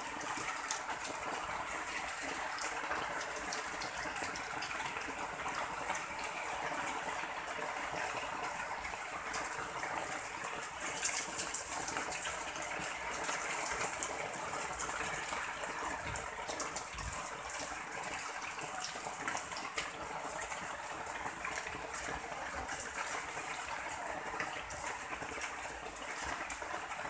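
Steady rain falling on the umbrellas overhead, an even hiss with no break, growing briefly louder about eleven seconds in.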